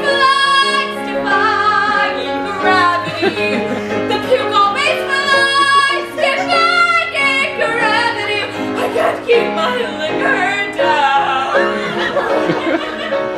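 A solo female voice singing a show tune with vibrato over instrumental accompaniment, in long sustained notes.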